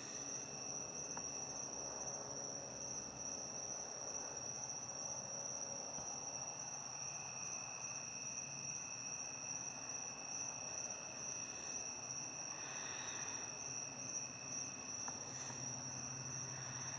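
Crickets trilling steadily: one high, continuous trill, with a second, lower-pitched trill joining about seven seconds in.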